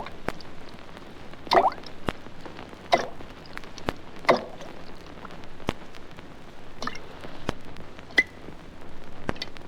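Water dripping: single drops plink one after another at uneven intervals, about one every second or so, with sharp little ticks between them.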